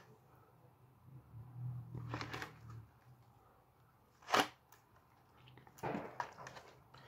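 Plastic blister packs on cardboard backing cards being handled, with soft rustling and a short, sharp crackle of plastic about four seconds in.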